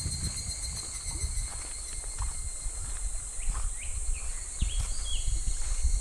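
Cicadas singing in a steady, high-pitched chorus, with irregular footsteps crunching on a gravel riverbank and a few short rising chirps in the second half.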